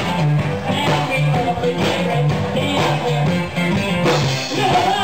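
Live blues band playing: electric guitar, electric bass and drum kit with a steady beat, and near the end a woman's voice comes in on a long held note.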